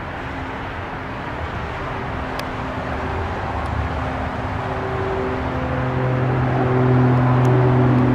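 Airliner passing low overhead: a steady rush of engine noise with a hum, growing louder as it nears, a deeper hum joining a little past halfway.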